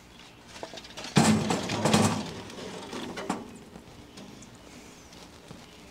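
Lit charcoal briquettes poured from a metal chimney starter into a steel expanded-metal charcoal basket, clattering and tumbling. The clatter is loudest about a second in and dies away after about three seconds.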